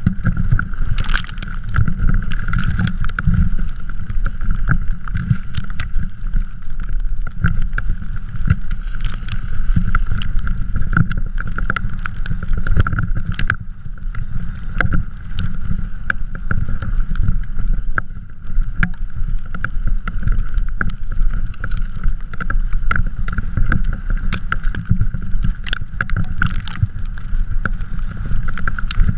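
Continuous rumble of a drift trike riding over snow, heard through a GoPro with wind buffeting the microphone. A steady whine runs underneath, and many small knocks and clicks come from the trike jolting over the surface.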